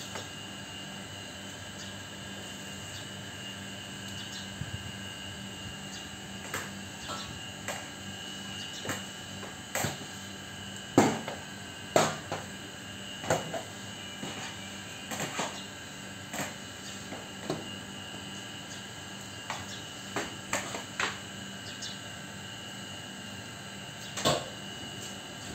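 Scattered knocks and clatters of household items and cupboard doors being handled in a kitchen, the two loudest about halfway through, over a steady hum.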